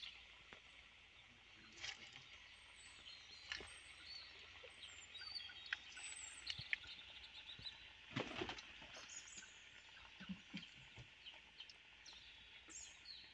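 Faint sizzling and crackling of bananas deep-frying in hot oil and melted sugar in a wok, with small pops scattered throughout as more banana pieces are slid in.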